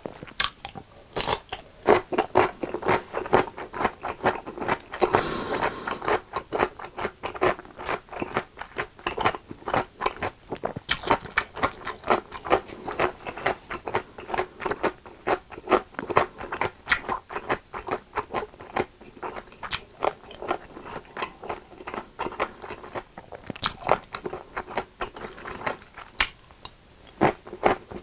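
Close-miked chewing: crunchy bites of a whole pickle chewed together with a mouthful of creamy carbonara spaghetti, a steady run of wet crunching clicks.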